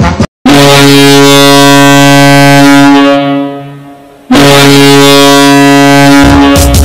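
Ice hockey arena goal horn sounding two long, loud blasts of a deep, steady horn tone. The first lasts about two and a half seconds and fades away; the second lasts about two seconds, and upbeat goal-song music starts right after it near the end.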